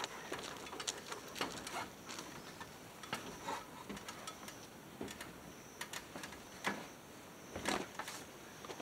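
Faint, irregular clicks and knocks of boots stepping down the rungs of an aluminium extension ladder.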